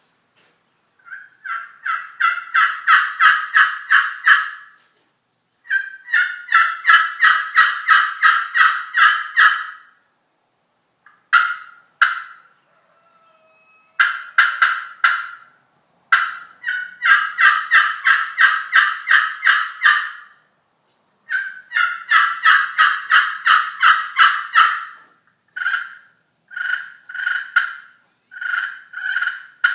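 Glass-over-glass mahogany turkey pot call played with a two-piece Diamondwood striker, giving runs of rapid hen-turkey yelps, about four notes a second, broken by short pauses. Near the end the notes slow to single yelps spaced apart.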